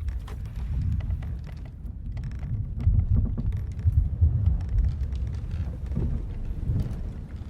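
Sailing-ship-at-sea ambience: a low, rumbling wash of sea noise that swells about three seconds in, with scattered creaks and ticks from the ship's timbers over it.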